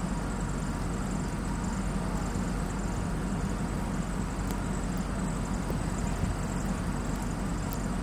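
Steady low rumble of city street ambience, with no single event standing out.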